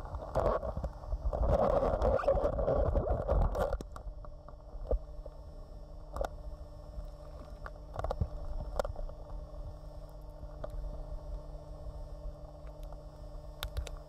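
Underwater sound of a scuba dive: a loud bubbling rumble from the diver's exhaled regulator bubbles for about the first four seconds, then a steady low hum with a few faint clicks.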